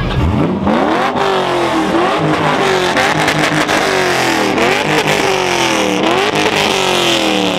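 C5 Chevrolet Corvette's V8 free-revving repeatedly through a loud exhaust, about once a second, each blip climbing sharply and falling back to idle.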